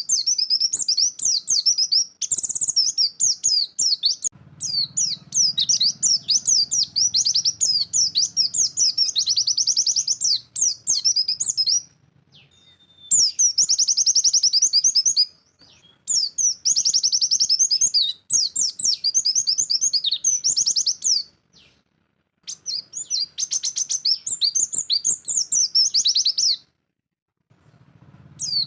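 White-eye (pleci) singing in long bursts of fast, high chirping trills in the rapid 'nembak' style, with short pauses between bursts.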